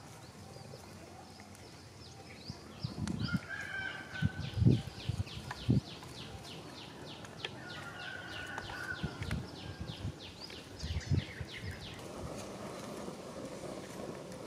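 Dull thumps, the loudest about a third of the way in, and a rapid series of short high chirps from a bird, about five a second, lasting several seconds in the middle.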